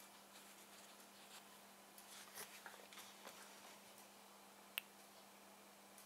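Near silence with faint handling sounds: soft scratchy rustles about two to three seconds in and one sharp click near the end, as the solder-clogged brass wool of a soldering-iron tip cleaner is handled with rubber-gloved fingers. A faint steady hum runs underneath.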